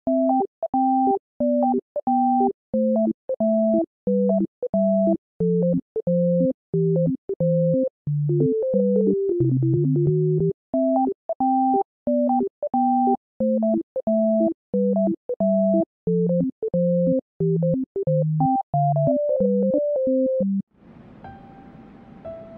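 Background music: a bouncy synthesizer tune of short, clipped notes over a bass line. It stops suddenly about 21 seconds in, giving way to a much quieter passage.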